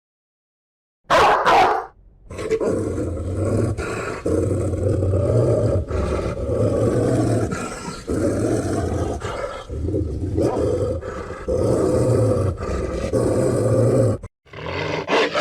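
Deep animal-like growling and roaring that starts suddenly about a second in and goes on in surging waves, then breaks off near the end.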